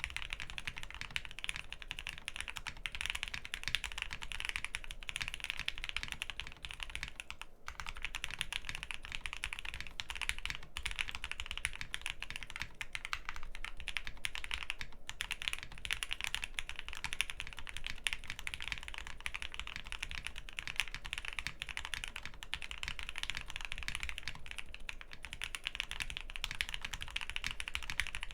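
Continuous fast typing on a custom mechanical keyboard with OP Black linear switches in a polycarbonate plate, no dampening, and ePBT keycaps: a dense stream of key clicks with a couple of brief pauses.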